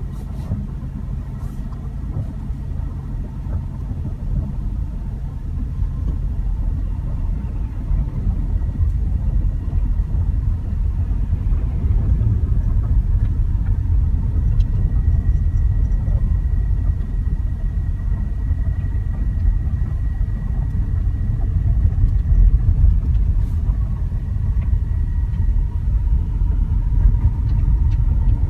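Low, steady rumble of a car's engine and tyres on a snow-covered road, heard from inside the cabin and growing gradually louder.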